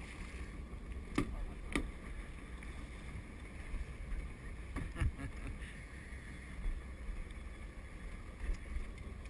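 Steady rumble and rush of wind and water around a small fishing boat, heard on a head-mounted action camera's microphone, with a few short sharp knocks about a second in, just under two seconds in, and at about five seconds.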